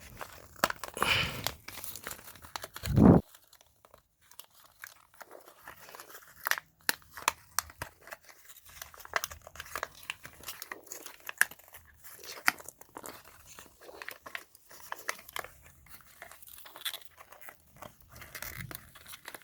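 Stiff plastic blister packaging crackling and crunching as it is cut, pried and torn open, with a loud crunch about three seconds in and then a long run of short sharp crackles and clicks.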